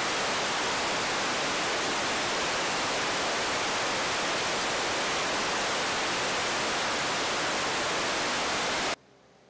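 Loud, perfectly even static hiss spread across all pitches, with no tones or changes in it, cutting off abruptly about nine seconds in.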